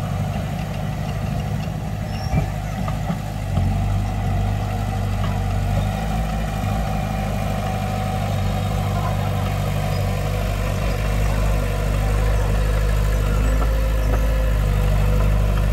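Diesel engine of earthmoving machinery running steadily, with a short sharp knock a couple of seconds in.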